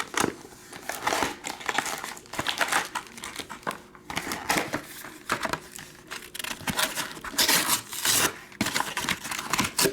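Plastic packaging on trading card boxes and packs crinkling and tearing in quick, irregular bursts as it is handled and opened.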